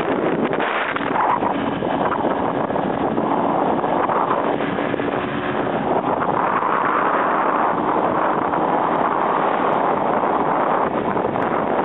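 Steady wind rushing over the microphone of a vehicle moving at road speed, with a faint steady engine hum beneath it.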